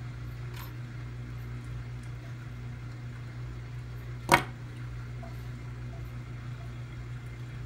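A steady low hum, with a faint click early and one sharp metallic click about four seconds in as needle-nose pliers are worked around a tiny jump ring.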